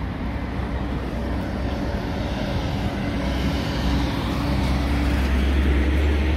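A steady low engine rumble that slowly grows louder, its deep hum strengthening toward the end.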